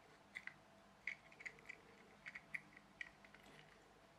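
Faint, scattered small clicks and taps of a small plastic toy car's chassis and wheels being handled and turned over by hand.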